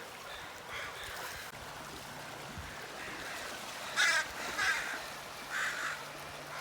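Birds giving a few short harsh calls, the loudest about four seconds in, over a faint low steady hum.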